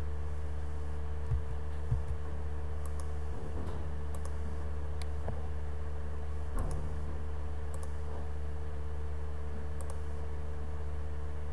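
Scattered computer mouse clicks, a dozen or so at uneven intervals, over a steady low electrical hum, with a couple of low thumps near the start.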